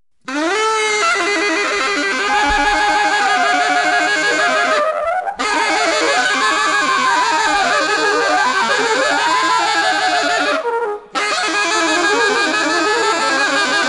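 Free-jazz reed wind instrument playing loud lines with swooping pitch glides. It starts just after the opening and breaks off briefly twice, about five and eleven seconds in.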